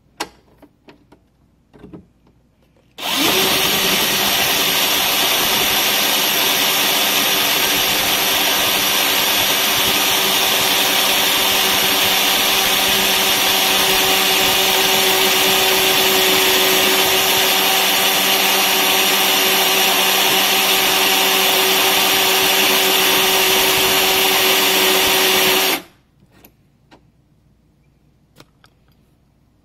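Cordless drill with a twist bit boring into the steel shaft of a bolt seized to its nut, to free the nut. It starts about three seconds in, runs at a steady pitch, and stops suddenly near the end, with a few faint clicks before and after.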